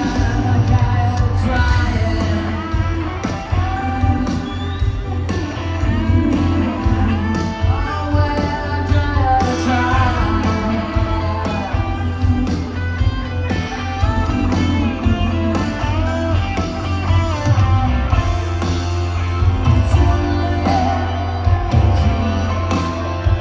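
Live rock band playing, with a woman singing the lead over electric guitar and a heavy, steady bass.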